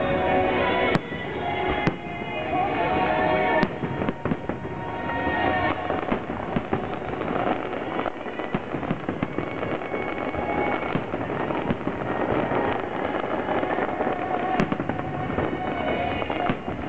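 Fireworks display: dense crackling and popping of bursting shells, with a few sharper bangs standing out, among them three in the first four seconds and one near the end. Music plays through it, loudest in the first six seconds.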